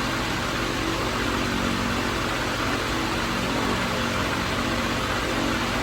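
Steady background hiss with a faint low hum running under it, unchanging, with no distinct clicks or knocks.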